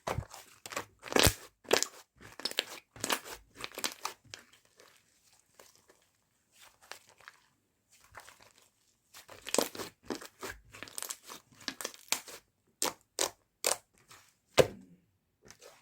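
Cookie slime being squeezed and worked by hand, crackling and crunching in dense bursts, with a quieter patch in the middle and a few separate sharp pops near the end.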